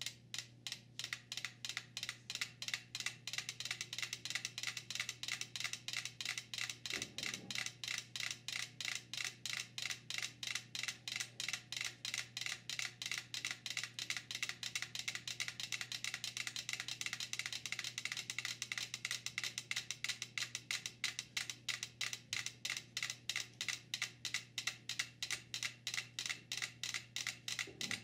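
Five mechanical metronomes ticking together on a board resting on cans, a rapid clatter of sharp ticks. The pendulums drift into step as the board sways under them, so the ticks settle towards one shared beat near the end. A steady low hum runs underneath.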